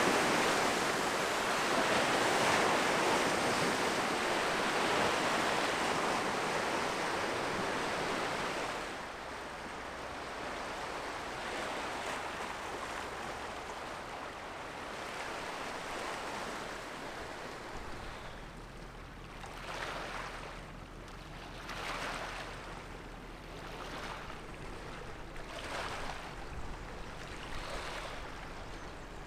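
River water washing against the shore, with wind on the microphone. After about nine seconds it quietens, and from about halfway small waves break roughly every two seconds over a faint steady low hum.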